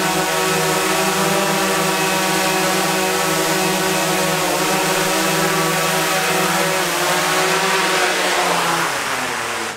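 A motor running steadily, its pitch dipping slightly a couple of times, then fading out quickly at the very end.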